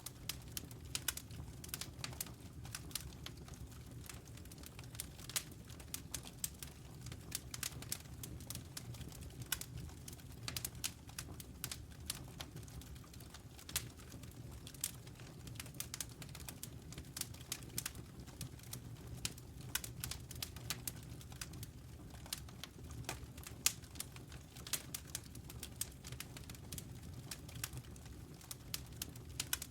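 Wood fire crackling, with frequent irregular sharp pops over a low, steady rumble.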